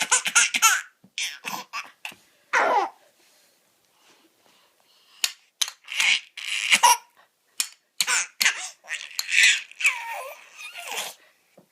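A baby laughing in repeated bursts, with a pause of about two seconds partway through.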